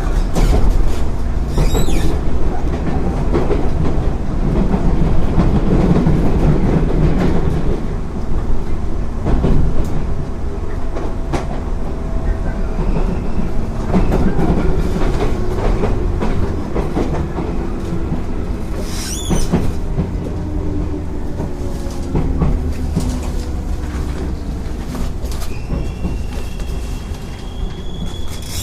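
JR 205 series electric train running, with field-added excitation control: steady rail rumble and wheel clicks, with a faint motor and gear hum. Near the end a high wheel squeal comes in.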